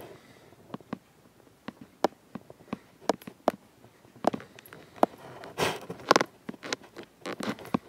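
Handling noise from a handheld phone being moved and gripped: irregular clicks and taps, with a couple of short scraping rubs a little past halfway through.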